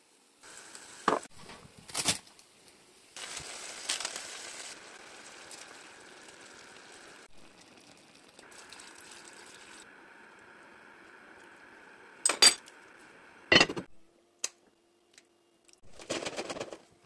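Kitchen cooking sounds: a few sharp clinks and knocks of glass and utensils against a pot, between stretches of low steady hiss. A short noisy patch comes near the end.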